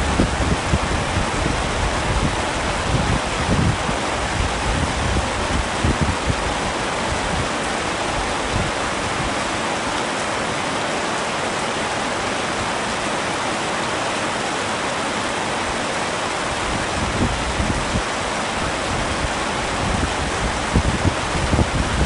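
Heavy rain falling, an even steady hiss, with low gusty rumbles during the first few seconds and again near the end.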